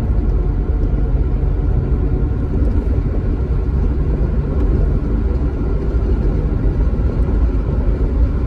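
Steady low rumble of a car driving at speed on an open road, heard from inside the cabin: engine and tyre noise.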